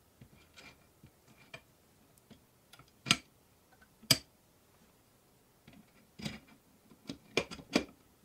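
Metal clicks and knocks as aluminium flat bars are set down onto the jig's metal rods and posts: two sharp knocks about three and four seconds in, then a quick run of clicks near the end.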